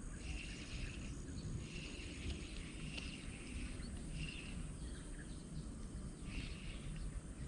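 Faint outdoor rural ambience: short high chirps that come and go about once a second over a low steady rumble.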